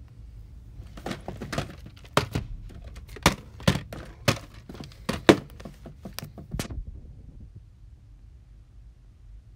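Plastic VHS tape cases being handled, with a dozen or so irregular knocks and clacks against each other and the wooden table, starting about a second in and stopping near the end.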